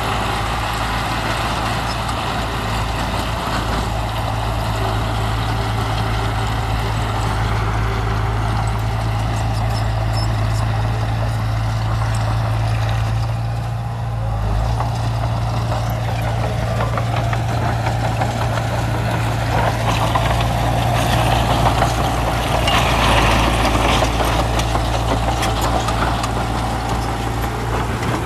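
Heavy diesel engine of earthmoving machinery running steadily with a low hum. It dips briefly about halfway, then grows a little louder, with scattered knocks, around two-thirds of the way in.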